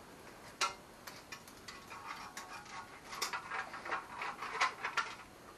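Small irregular metallic clicks and ticks as a steel clamp is worked around the pipe of a new OEM Yamaha Grizzly 660 exhaust: one sharper click about half a second in, then a dense run of ticks through the second half.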